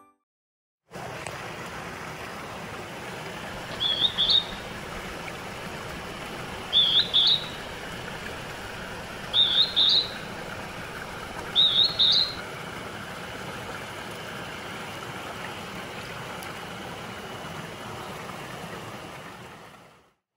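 Northern hawk-cuckoo (Juichi) calling its two-note "jū-ichi" four times, each call a quick high rising pair, a few seconds apart. The calls sound over the steady rush of a mountain stream.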